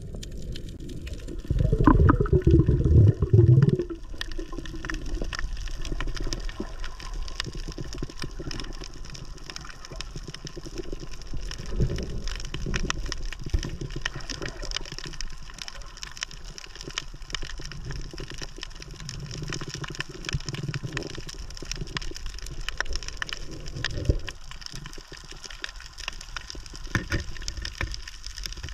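Underwater sound on a tropical coral reef at night: dense, steady crackling of snapping shrimp over a low rumble of moving water. A louder low rush of water comes about two seconds in and lasts about two seconds.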